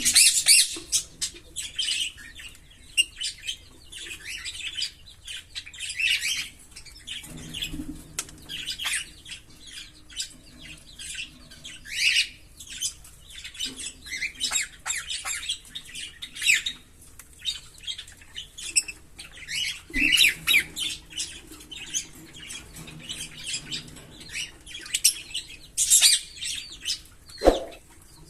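A pair of Fischer's lovebirds chirping and squawking in quick, high-pitched runs of calls, with short pauses between them.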